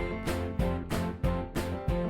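Background music with a steady, quick beat and pitched instrumental notes.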